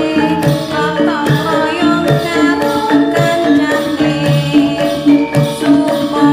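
Background music: a melody over a steady percussion beat.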